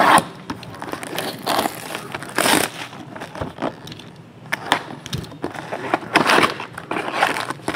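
Plastic shrink wrap crinkling and tearing as a sealed cardboard trading-card box is unwrapped, then the lid is flipped open and the wrapped card packs are pulled out, all in irregular rustles and crackles.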